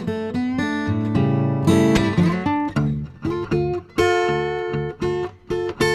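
Background music: acoustic guitar plucked and strummed, a series of sharp picked notes and chords.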